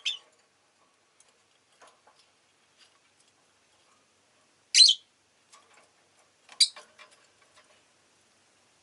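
Rosy-faced lovebird giving short, sharp, high chirps: one at the start, the loudest about five seconds in, another about a second and a half later, with faint ticks in between.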